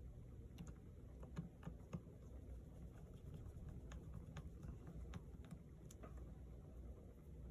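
Small precision screwdriver and tiny screws making faint, scattered light clicks and ticks as the two middle screws go back into a MacBook Air. There are two sharper clicks about a second and a half and two seconds in, over a low steady hum.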